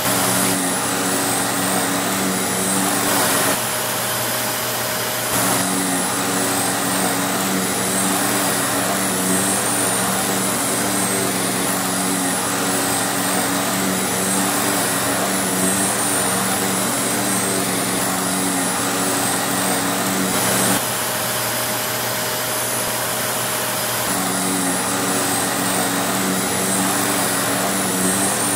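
Vacuum cleaner running with a loud, steady rushing noise and a motor hum. The hum drops out twice, around 3 seconds and around 21 seconds in, and returns a couple of seconds later each time.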